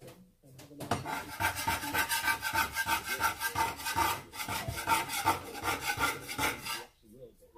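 Metal slotted spatula scraping flour and dough crumbs across a wooden chopping board in rapid back-and-forth strokes, several a second. The scraping starts about a second in and stops shortly before the end.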